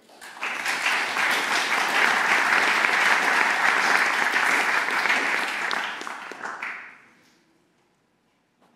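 Audience applauding. The clapping swells within the first second, holds steady, then dies away about seven seconds in.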